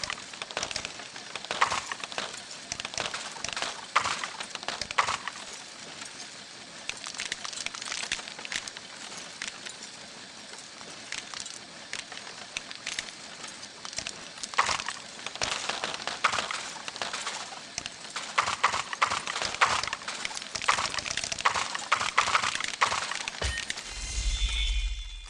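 Shredding machine crunching and breaking up material: dense crackling and snapping, with louder bursts of cracks every second or two. A low hum comes in near the end.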